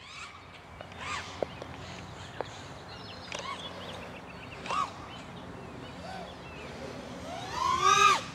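Home-built FPV racing drone's motors whining in short throttle bursts, the pitch rising and falling with each punch; the longest and loudest burst comes near the end.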